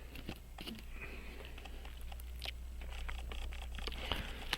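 Faint, irregular small clicks and taps of watchmaker's tools handling parts of a pocket watch movement, over a steady low hum.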